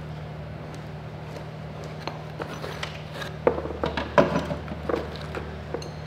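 Clicks and knocks of small metal fuel-sump kit parts being handled and unscrewed over a cardboard box, two of them louder about three and a half and four seconds in, over a steady low hum.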